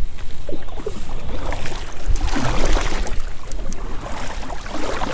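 Kayak paddle strokes splashing in the water, loudest about two seconds in and again near the end, over a steady low rumble of wind on the microphone.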